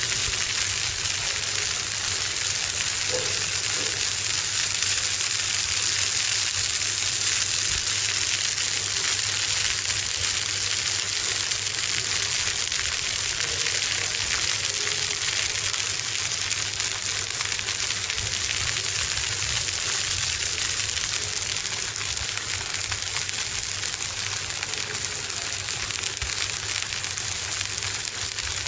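Fish sizzling steadily on a hot flat-top grill: a continuous, even hiss with fine crackling as the flesh sears.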